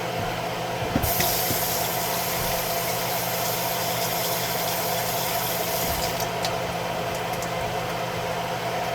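A steady high hiss starts about a second in and cuts off suddenly about five seconds later, over a constant mechanical hum.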